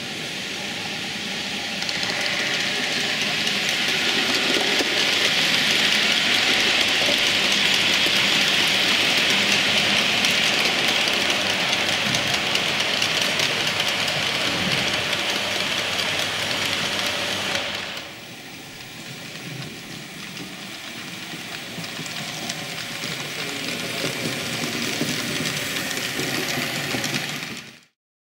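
Model freight train rolling past on the layout's track: a steady rushing of wheels on rails that swells over several seconds and holds, then drops suddenly to a quieter rolling sound that fades out near the end.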